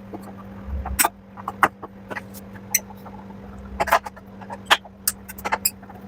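Scattered clicks and knocks, about a dozen spread irregularly, of hands and tools working on a front-loading washing machine's panels and door gasket as it is taken apart, over a steady low hum.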